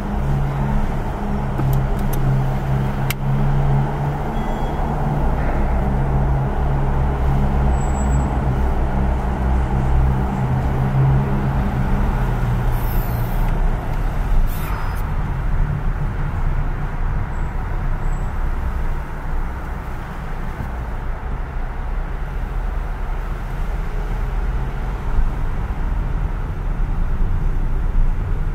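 Honda Jazz driving slowly: steady engine and tyre rumble, with a low hum that stops about halfway through.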